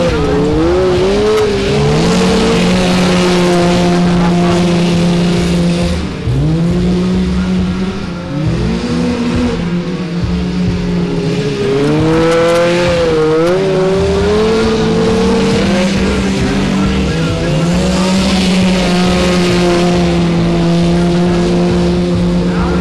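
Racing lawn tractor engines running hard, their pitch holding steady and then rising and falling several times as they throttle up and ease off.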